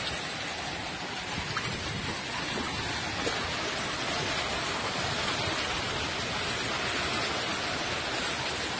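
Steady hiss of beach ambience: wind and shallow waves washing over the sand, with no distinct events.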